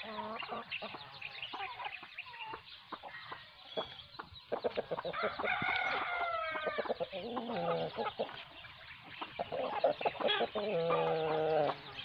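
Parrot-beak Aseel roosters and hens clucking, with one rooster crowing a long crow about five seconds in and a second, lower crow near the end.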